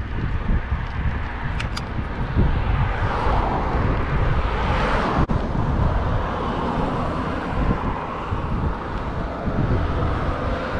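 Wind buffeting the microphone of a camera on a moving bicycle, a gusty rumble mixed with tyre and road noise, swelling in the middle, with a brief dropout about five seconds in.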